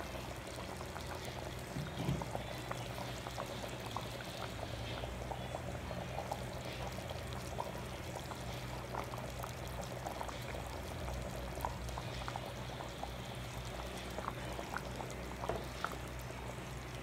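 Thick tomato-based pork stew (menudo) bubbling in an open pot, with many small wet pops over a steady low hum.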